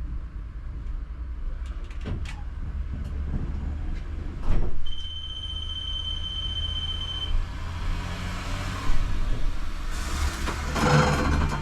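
ČKD Tatra T3R tram running, heard from the cab: a steady low rumble with a few sharp knocks, a steady high tone lasting a couple of seconds about halfway through, and a louder rushing noise near the end.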